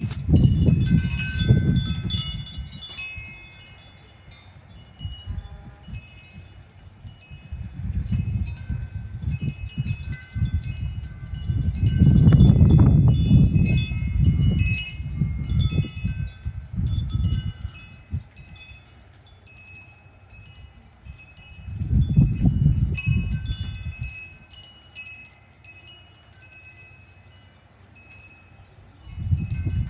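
Wind chimes ringing irregularly, many light overlapping strikes, in a gusty snowstorm wind that comes in several strong surges of low rumbling wind noise on the microphone.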